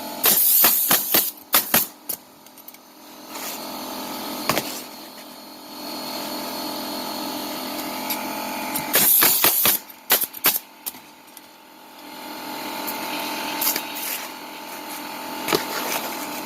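Pneumatic roofing nailer firing nails into asphalt shingles: two quick runs of five or six sharp shots with a hiss of air, one at the start and one about nine seconds in, and a few single shots between, over a steady hum.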